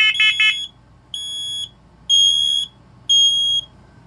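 Interconnected First Alert smoke alarms sounding: a quick burst of stepped chirps at the start, then three half-second high beeps about a second apart, the temporal-three pattern that signals smoke or fire.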